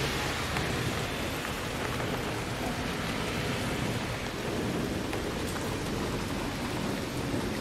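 Steady hiss of rain, with wind rumbling unevenly on the microphone.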